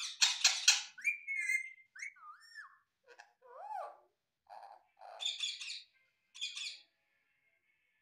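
Alexandrine parakeet calling: a run of rapid harsh chattering notes, then several whistled notes that slide up and down, then two more short bursts of chatter.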